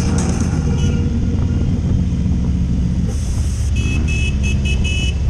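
Large touring motorcycle riding at low speed in city traffic: a steady low engine drone with wind rumble. Near the end comes a quick series of about five short, high-pitched toots.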